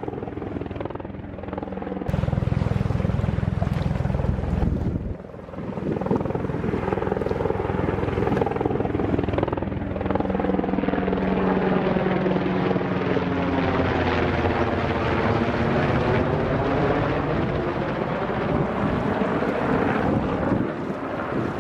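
Low-flying military helicopter, a UH-60 Black Hawk by its look, with a steady rotor chop and turbine sound. In the second half it passes close overhead and is loudest, and its pitch seems to sweep down and back up as it goes over.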